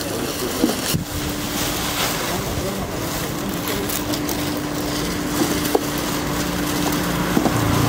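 A steady engine hum over outdoor noise, starting about a second in and holding to near the end.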